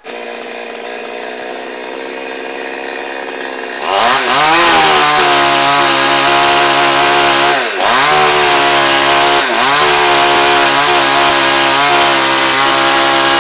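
Chainsaw idling for about four seconds, then revved to full throttle and held there, its engine speed dipping briefly a few times.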